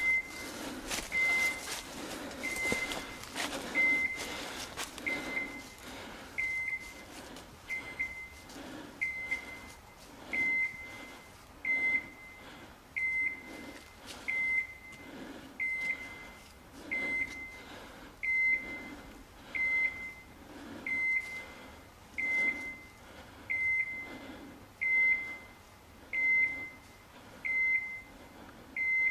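Electronic beeper collar on a hunting dog, giving a short high beep about once every 1.3 seconds at a steady pace. Crackling of brush and footsteps is heard in the first few seconds.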